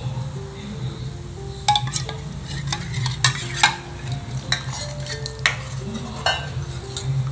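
A steel ladle stirring and scraping in a stainless-steel pan of simmering sambar, with a string of sharp metal-on-metal clinks. Soft background music plays underneath.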